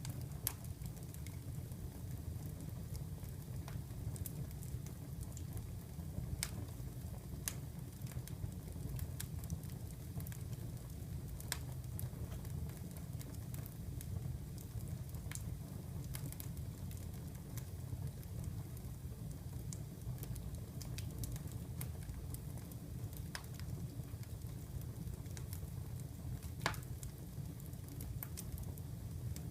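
Wood fire burning in a fireplace: a steady low rumble with scattered, irregular sharp crackles and pops, one louder pop near the end.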